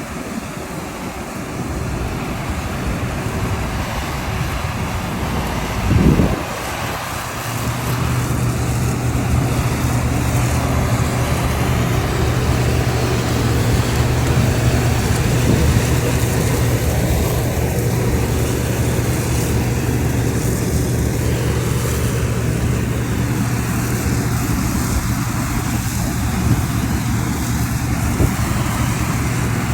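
A rice-harvesting machine's engine running steadily, a droning hum that settles in about seven seconds in, with a short loud rush of noise just before.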